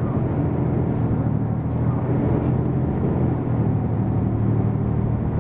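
Diesel engine of a Hino PDG-KV234N2 city bus running steadily, heard from inside the cabin.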